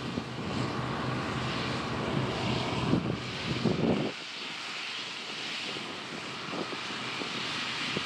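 Two International Harvester Axial-Flow combines, a 1979 IH 1460 and a 1988 Case IH 1640, each with a six-cylinder IH diesel, running at working speed while harvesting soybeans: a steady engine and machine drone. A couple of low rumbles of wind on the microphone come about three to four seconds in.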